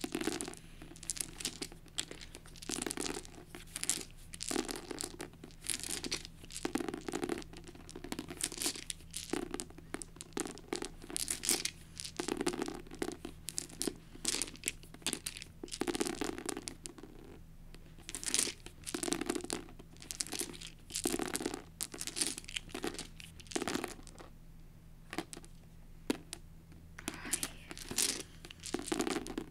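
A hand sweeping over a paperback book's paper cover and picking up a set of plastic six-sided dice: a run of short rustling scrapes and clicks, with a lull near the end.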